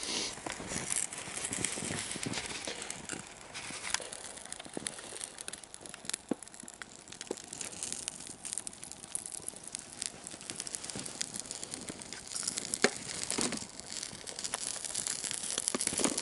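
Trash fire burning, crackling with scattered sharp pops.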